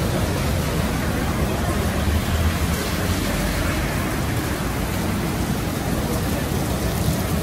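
Storm wind and surf making a steady, loud noise, with low wind buffeting on the microphone.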